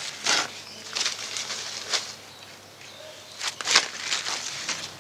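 Soil being scooped and pressed by hand around a seedling in a fabric planter bag: irregular rustling and crunching scrapes, the loudest a little before four seconds in.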